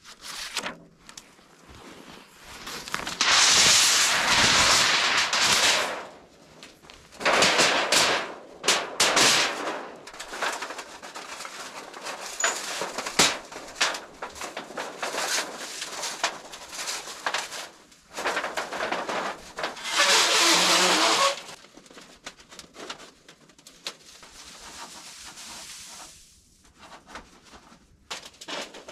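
Snow crunching and branches scraping as wooden poles and a log are handled and dragged through snow, in loud rough bursts of a few seconds with scattered knocks and clicks between.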